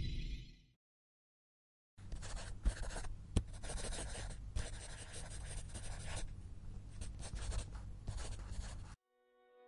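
Pen scratching across paper in quick, uneven strokes for about seven seconds, a handwriting sound effect, with a couple of sharper clicks early on. It cuts off suddenly. Before it, the tail of a short music sting fades into a second of silence.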